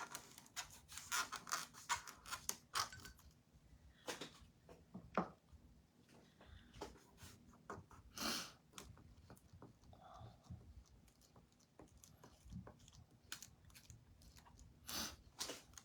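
Irregular scraping and clicking of a scraper spreading chalk paste through a silk-screen transfer onto a chalkboard, with a few louder scrapes scattered through.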